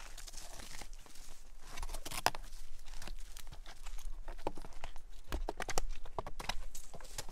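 Snowshoe footsteps crunching over thin, patchy snow and forest floor, an irregular run of short crunches.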